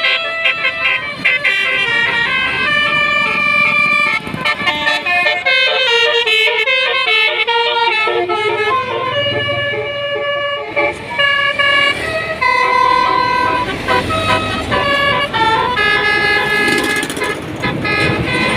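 Indonesian bus 'telolet' horn, a Basuri-style multi-tone air horn, playing a fast melody of bright horn notes that step up and down with short breaks between them.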